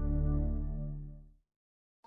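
The last held chord of a logo's music jingle, fading out over about a second and a half and ending in dead silence.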